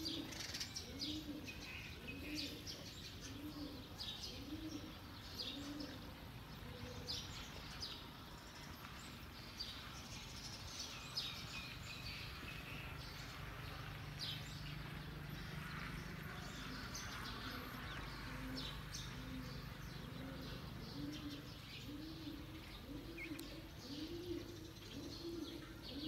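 Doves cooing outdoors, a low note repeated over and over in steady series, with small birds chirping high above it. A low motor hum rises and fades in the middle.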